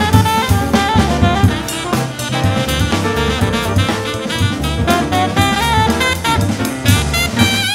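Live jazz-funk band playing a busy groove: drum kit and a moving bass line up front, with saxophone lines above.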